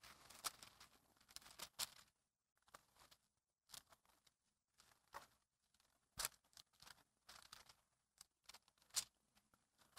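Faint rustling of thin Bible pages being leafed through on a lectern, with scattered small sharp ticks and page flicks at irregular intervals.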